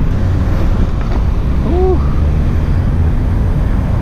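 Wind buffeting the camera's microphone while riding a mountain bike along a busy road, over a low traffic rumble. About two seconds in comes one short tone that rises and falls.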